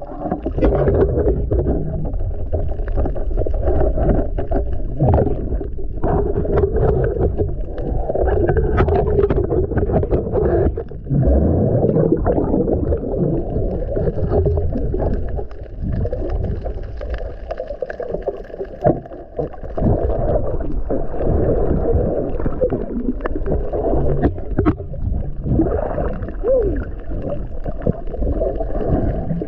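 Muffled underwater sound from a camera in a waterproof housing: water rushing and sloshing around it as the spearfisher swims along the reef, with scattered clicks and knocks.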